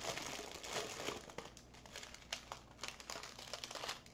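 Small clear plastic bags of diamond-painting rhinestones crinkling and rustling as they are handled. The crinkling is denser in the first second and a half, then comes in sparser crackles.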